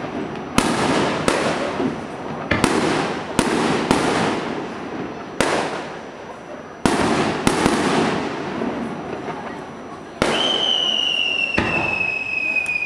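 Aerial fireworks shells bursting: about ten sharp booms, each trailing off in a rumbling echo. About ten seconds in, a whistling firework gives a long, slowly falling whistle over the bursts.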